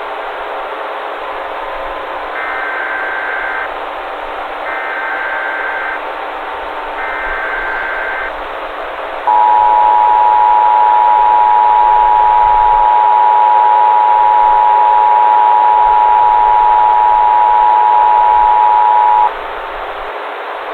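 Emergency Alert System header: three short bursts of SAME data tones about a second apart, then the EAS two-tone attention signal (853 and 960 Hz together), held steady and louder for about ten seconds before it cuts off. A steady radio-static hiss runs underneath.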